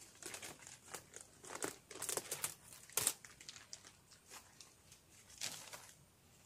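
Wooden beehive frames being moved and slid along inside the hive body: an irregular run of scrapes, clicks and crinkling, with the sharpest knock about three seconds in.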